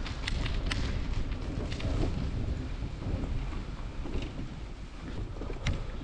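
Wind buffeting a GoPro's microphone while cycling: a steady, fluctuating low rumble with a few sharp clicks, the loudest near the end.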